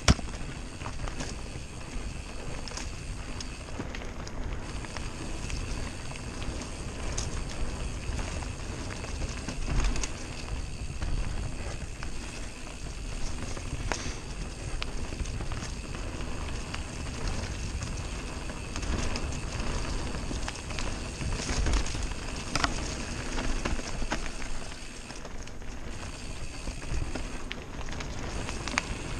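Mountain bike ridden fast down a dirt forest trail: knobby tyres rolling and crackling over dirt, leaves and roots, with the bike rattling over bumps and a few harder knocks.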